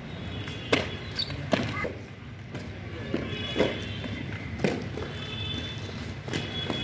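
Inline skate wheels rolling on concrete, with a sharp knock every second or two as the skates strike the ground.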